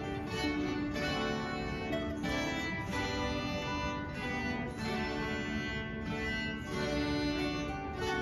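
A folk string ensemble of dulcimers, a harp and an acoustic guitar playing a tune together, plucked strings ringing in a steady flowing melody.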